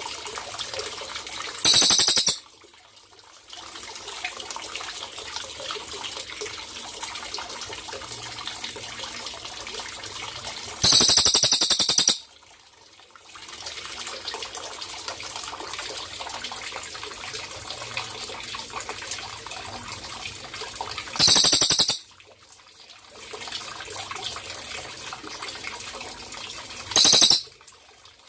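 Crested jay giving a loud, high, rapid rattling call four times, each lasting about a second and coming several seconds apart, over a steady trickle of running water.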